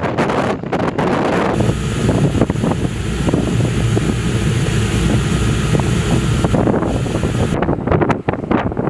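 Wind rushing and buffeting the microphone on a warship at sea, over a steady rush of wind and water. The sound changes abruptly about one and a half seconds in to a steadier rush, then back to gusty buffeting near the end.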